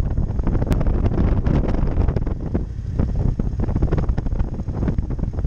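Wind buffeting the microphone in uneven gusts, over a Yamaha MT-07 Tracer's parallel-twin engine running at low speed as the bike is ridden slowly onto sand.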